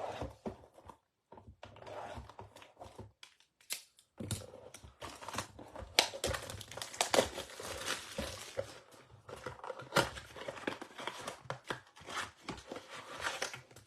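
Trading-card hobby box being unwrapped and opened: plastic wrapping crinkling and tearing, with cardboard rustling and a few sharp snaps.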